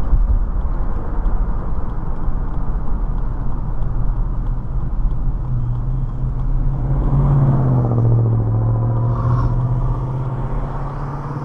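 Car driving, with engine and road noise from inside the cabin. About six seconds in the engine note comes up and holds steady as the car pulls away, while the low tyre rumble fades.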